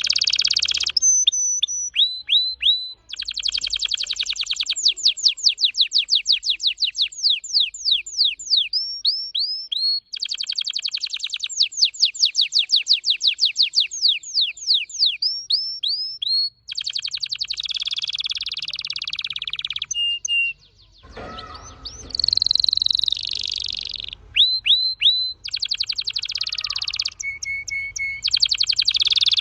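Red factor canary singing a long, fast song: dense buzzy rolls alternate with runs of rapid, repeated falling whistles and a few short held high notes, broken by brief pauses.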